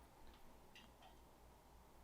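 Near silence: room tone with three faint, brief ticks in the first second or so.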